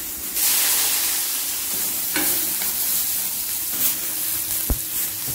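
Chopped onion and mushroom sizzling as they fry in a black iron kadai, stirred with a steel ladle. The sizzle gets louder about half a second in. There is one sharp knock near the end.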